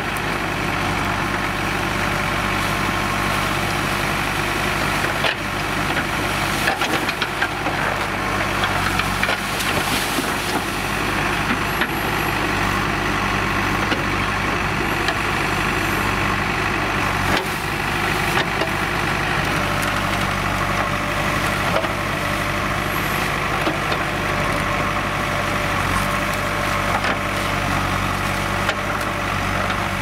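JCB 3DX backhoe loader's diesel engine running steadily under load as the backhoe arm digs, with occasional sharp cracks of banana stems and debris being crushed and torn out.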